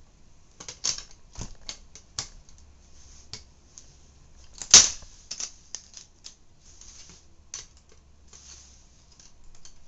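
Irregular clicks and taps of a floppy drive's small metal and plastic parts being handled and worked apart by hand, with one louder click about halfway through.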